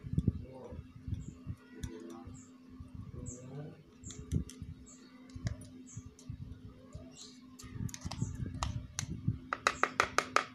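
Kitchen utensils and containers being handled: scattered clicks and low knocks, then, about a second before the end, a quick run of sharp clicks, about eight a second, which are the loudest sounds. A small bird chirps repeatedly in the background with short, high chirps.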